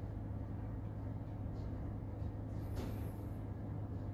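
Steady low background hum with faint noise beneath it, in a pause between recited verses. A brief faint swish comes about three seconds in.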